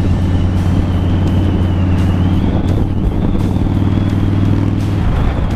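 Harley-Davidson Dyna's V-twin engine running steadily at highway cruising speed, heard from the saddle with wind rushing past.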